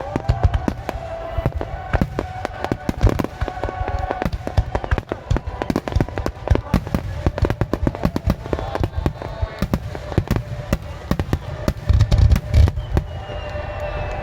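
Aerial fireworks bursting in rapid succession, a dense stream of bangs and crackles, with a cluster of heavier low booms about twelve seconds in and a falling whistle near the end.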